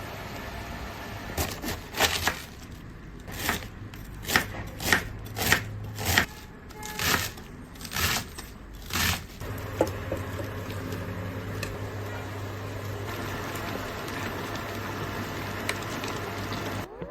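A steady low hum under about a dozen irregular sharp knocks and clatters, between about one and nine seconds in. After that only the hum continues.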